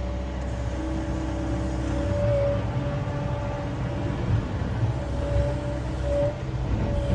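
John Deere 333E compact track loader's diesel engine running steadily, with a steady high whine held above the engine note.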